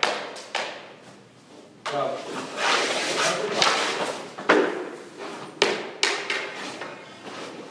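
Hockey stick and puck knocks and goalie pads slapping down on the rink surface. There are several sudden hits, and a longer scraping stretch in the middle as the goalie slides and drops into a butterfly.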